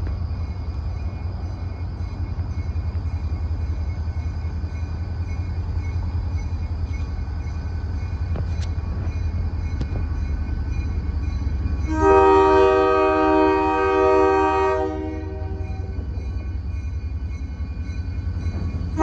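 Steady low rumble of an approaching train. About two-thirds of the way in, a locomotive horn sounds one long blast lasting about three seconds.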